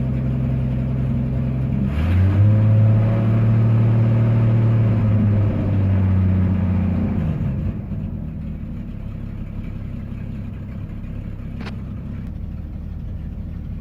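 1974 GMC C1500's 250 cubic-inch inline-six running just after a cold start, having sat about a week. It is revved up about two seconds in and held for several seconds, then drops back and runs quieter from about eight seconds in.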